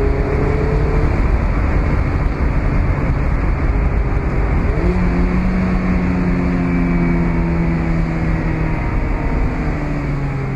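2017 Mazda MX-5's four-cylinder petrol engine heard from the open-top cabin under way: revs climb at first, the sound dips briefly about two seconds in, then the engine pulls steadily at lower revs, slowly easing off near the end. Wind and tyre noise run under it throughout.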